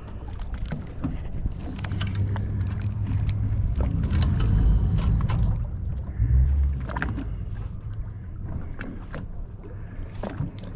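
Boat engine running at low speed, a steady low hum, with a louder rush of water and wind noise swelling in the first half and a few scattered knocks and clicks.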